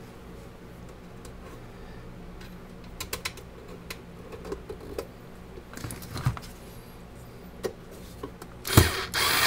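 Small scattered metal clicks and taps as screws are picked up and set into a galvanized steel base plate. Near the end a knock, then a small cordless electric screwdriver starts running.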